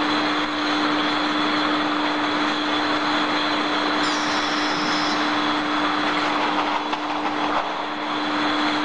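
Steady factory machinery noise from a glass-bottle conveyor and loading line, with a constant low hum and a thin high whine over it. A brief higher whine comes in about four seconds in and stops a second later.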